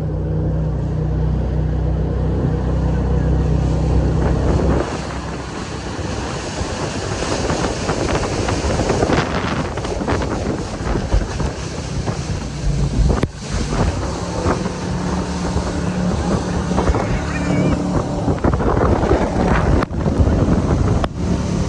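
Jet boat engine running under way, steady for the first few seconds, then mostly covered by the rush of water spray and wind buffeting the microphone, with the engine coming back through now and then.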